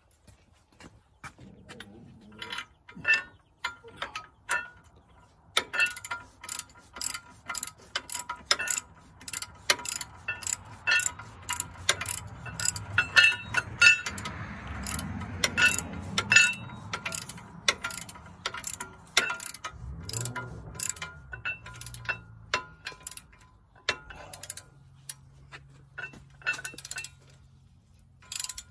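Ratchet wrench clicking in irregular runs of sharp, slightly ringing clicks as bolts holding a steel bracket are turned.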